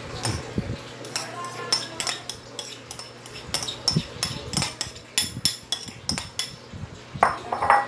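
A plate and a glass mixing bowl clinking and tapping against each other as grated celery is scraped off the plate into the bowl: a string of irregular light clicks, a few each second.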